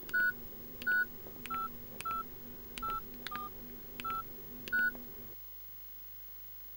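Mobile phone keypad beeping as a number is dialled: eight short beeps of one pitch, irregularly spaced, each with a faint click, stopping about five seconds in.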